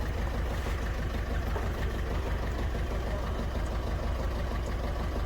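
Ford Figo's four-cylinder common-rail diesel engine idling steadily, with a heavy misfire that the mechanic suspects comes from a faulty injector.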